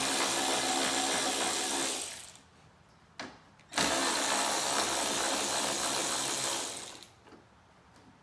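A cordless power tool with an 8 mm socket spinning out the third brake light's mounting bolts in two runs of motor whine, the first stopping about two seconds in and the second running from about four to seven seconds in.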